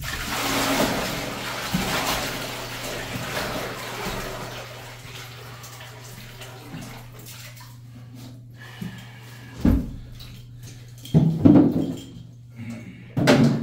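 Bucket of dirty water poured into a bathtub that is already full of water: a splashing rush that fades over about five seconds. A few dull knocks follow near the end, over a low steady hum.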